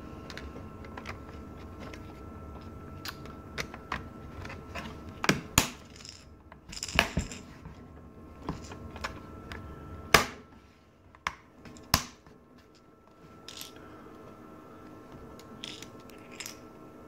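Irregular clicks, taps and knocks of small plastic and metal parts being handled as a Dell Mini 910 netbook is reassembled, with the sharpest knock about ten seconds in. A faint steady hum runs underneath.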